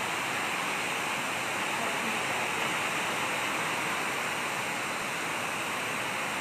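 Heavy rain falling steadily, a dense, even hiss with no letup.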